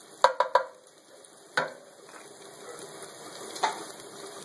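Diced pancetta and garlic sizzling steadily in olive oil in a skillet as the pancetta's fat renders out. Sharp clicks stand out: three in quick succession just after the start, then single ones about a second and a half in and about three and a half seconds in.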